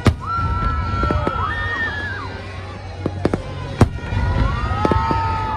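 New Year fireworks bursting: a handful of sharp bangs, the loudest just after the start and a cluster three to four seconds in, over a steady low rumble of distant explosions. Long wavering high-pitched tones carry on over the top.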